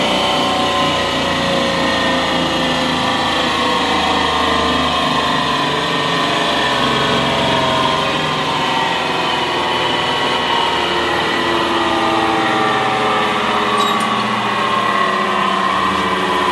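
ЦДК5-3 multi-rip circular saw running: a steady, loud machine hum with several whining tones that slowly drift in pitch, and a light click near the end.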